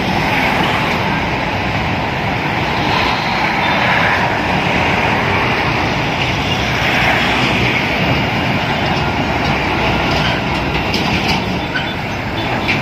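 Loud, steady rumble and hiss of passing vehicle traffic, with no distinct separate events.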